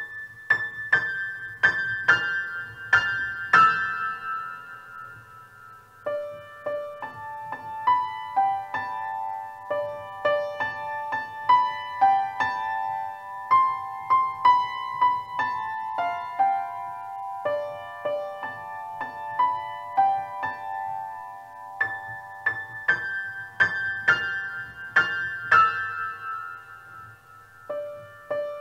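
Solo piano playing a simple beginner piece. It opens with repeated high notes for about four seconds, then a stepwise melody in the middle register over a low sustained bass, and the high opening figure returns about 22 seconds in.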